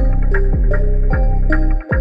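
Background music with a steady beat and a deep bass.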